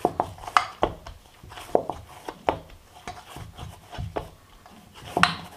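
Hand kneading soft wheat-flour dough in a stainless steel bowl: irregular soft knocks and rubs of the dough and hand against the steel, with the loudest knock near the end.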